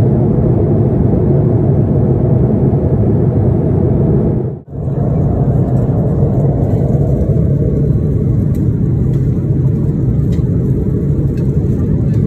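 Steady rumble of airliner cabin noise in cruise aboard an Airbus A330-300, the engines and airflow heard from inside the cabin. It drops out for an instant about four and a half seconds in, then goes on slightly duller, with a few faint clicks near the end.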